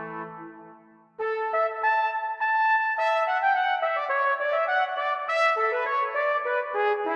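Brass instrumental music: a held low chord fades away in the first second, then after a brief gap a trumpet-led brass tune starts and plays on in clear, separate notes.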